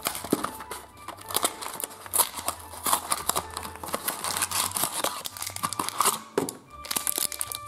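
Surprise-box packaging being torn open and crinkled by hand, a rapid, irregular run of rips and crackles.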